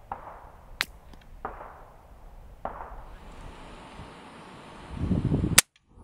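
Suppressed AR-15 firing subsonic .223 Remington, heard from about 100 yards downrange. A sharp crack comes about a second in, a few softer rushes follow, and the loudest crack comes near the end, just after a low rumble.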